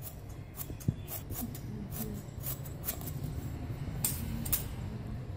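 Tailoring scissors snipping through cloth in a quick run of cuts, about two to three snips a second.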